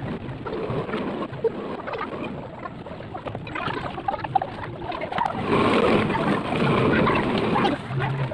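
Pine boards being laid out and knocked on a workbench, with a few sharp knocks, over steady animal calls in the background that grow louder about two thirds of the way through.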